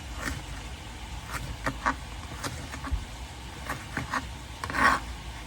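Kitchen knife dicing a yellow onion on a cutting board: irregular sharp knocks of the blade, the loudest near the end, over a low steady hum.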